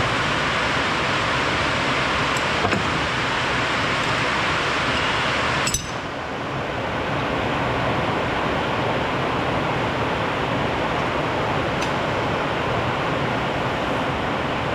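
Steady hiss of heavy rain, with one sharp click about six seconds in.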